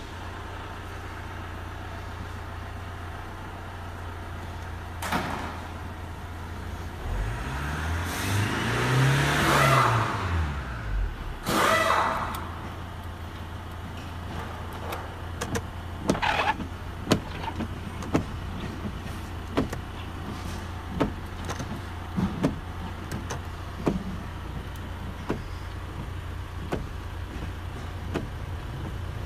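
Hyundai Sonata NF's 2.0-litre D4EA four-cylinder turbodiesel idling steadily, heard from inside the cabin. About a third of the way in it is revved once, rising smoothly and falling back to idle. Scattered light clicks come later.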